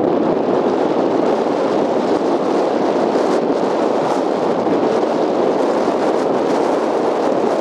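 Steady rushing wind blowing across the microphone, an even noise with no tone in it and slight flickers of gusting.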